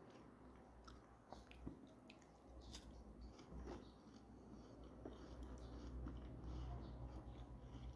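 Faint chewing of a milk-soaked biscuit, with a few soft mouth clicks over a low steady hum.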